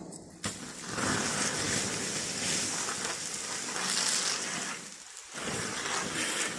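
Water being put onto a small bonfire, hissing steadily as it hits the embers to extinguish it, with a short break about five seconds in before the hissing picks up again.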